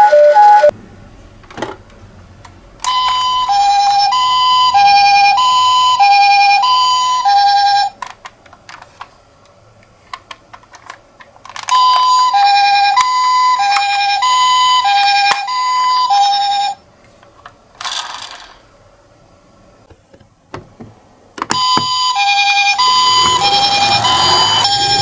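Toy miniature ambulance's electronic siren playing a high-low two-tone ambulance call, about one high-low cycle every 1.3 seconds, in three bursts of around five seconds each. Between the bursts come scattered clicks and knocks.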